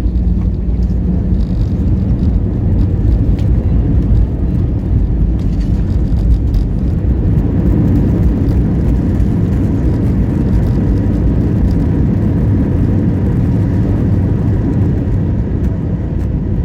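Steady, loud low rumble inside the cabin of an Airbus A320: engine and airflow noise.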